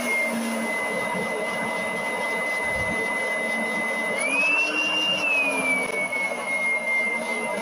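LEGO double-acting model steam engine running, a steady whirring with a high whine. The whine rises in pitch about four seconds in and eases back down over the next two seconds.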